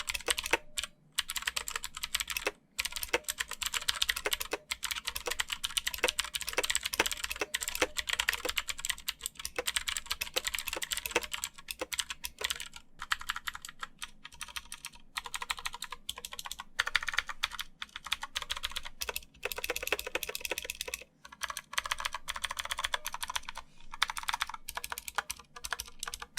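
Fast, continuous typing on a compact 60% Bluetooth mechanical keyboard with blue switches, a dense run of keystroke clicks with a few brief pauses.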